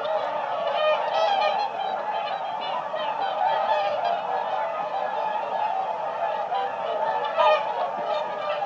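A flock of swans calling, many honking calls overlapping in a continuous chorus, with one louder call near the end.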